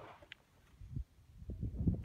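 Quiet outdoor ambience with faint low knocks and wind rumble as a shooter gets set. A handgun shot cracks right at the very end.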